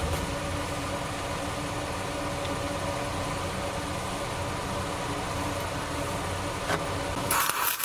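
Steady mechanical hum with a few steady tones, as of a machine running in a welding shop. Near the end a loud hissing crackle starts: the flux-core welding arc being struck for the next fillet pass.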